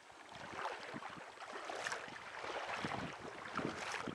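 Wind buffeting the microphone over a shallow river running across rocks, with irregular crackles, growing louder about a second in.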